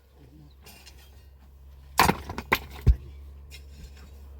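A quick run of sharp wooden knocks and cracks about two seconds in, the loudest coming a second later, over a steady low hum.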